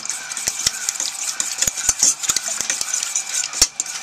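Fork beating raw eggs in a metal pot: a wet swishing stir with irregular clinks of the fork against the pot, two or three a second, the loudest about three and a half seconds in.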